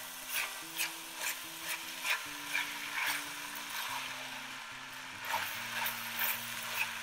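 A silicone spatula stirring and scraping rice and vegetables around a heavy enamelled pot, in short strokes about twice a second with a pause midway, over a steady sizzle of the rice frying as it is heated through.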